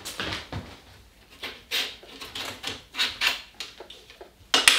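Screw-clamped mountain bike handlebar grips being twisted and worked off the bar, with a dozen or so short rubbing strokes of grip against bar; the grips sit tight. A sharper, louder knock comes near the end.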